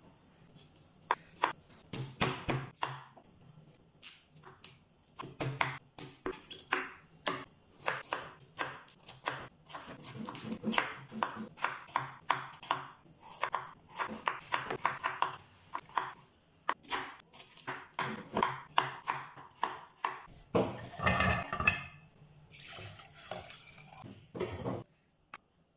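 Kitchen knife cutting a purple sweet potato on a wooden cutting board: a long run of irregular knocks as the blade goes through the potato and strikes the board. Near the end, a short clatter and water sounds as the cubes go into a steel pot of water.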